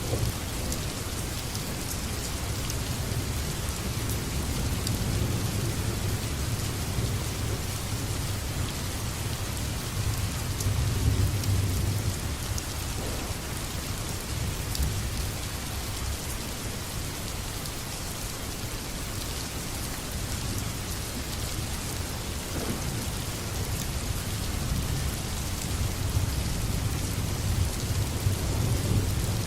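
Steady heavy rain falling, with the low rumble of thunder swelling and fading beneath it, strongest about ten seconds in and again near the end.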